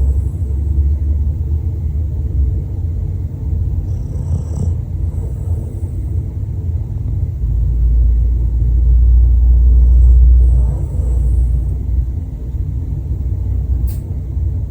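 Dog snoring in deep sleep: a loud, steady low rumble that swells in the middle, with a faint high whistle on the breath twice, about six seconds apart. A brief click near the end.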